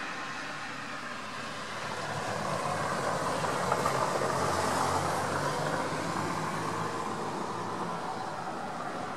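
A vehicle passing by: its noise builds over the first few seconds, is loudest around the middle, and fades away.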